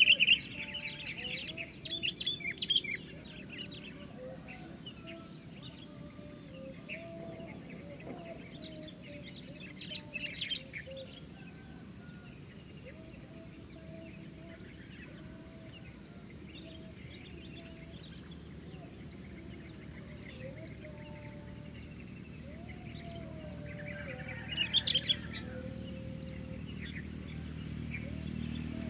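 Sooty-headed bulbuls calling: loud bursts of short, chattering calls at the start, again around ten seconds in and near twenty-five seconds in. A fainter low, repeated call carries on throughout.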